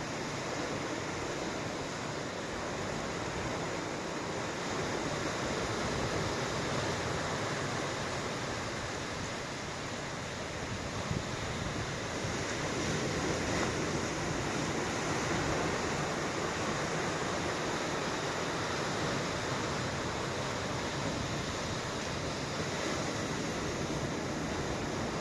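Ocean surf: waves washing ashore in a continuous rush. The wash swells a little about six seconds in and again from about twelve to sixteen seconds.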